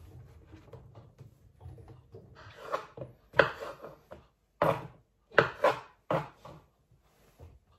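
Kitchen knife chopping button mushrooms on a wooden chopping board: a run of about seven sharp, irregular knocks of the blade on the board, starting a couple of seconds in.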